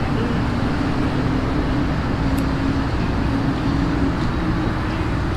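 Steady rumble of road traffic and engine noise, with a faint constant hum underneath and no distinct events.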